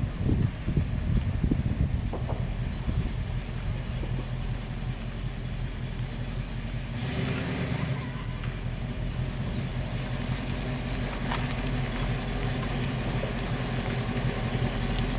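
Late-1960s Ford Mustang coupe's engine running at low speed as the car creeps along, a steady low exhaust note, louder in the first second or so.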